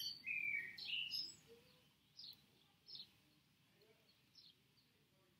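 A bird singing outdoors. A quick run of loud, high chirps comes in the first second or so, then short single falling chirps follow about a second apart.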